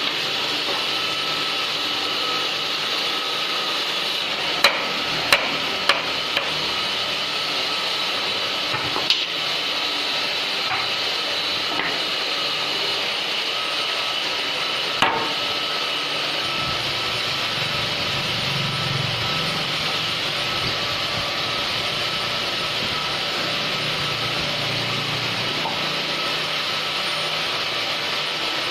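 Hammer knocks on wood during door assembly: four sharp knocks in quick succession about five seconds in, then single knocks near nine and fifteen seconds. A steady hum and hiss runs underneath.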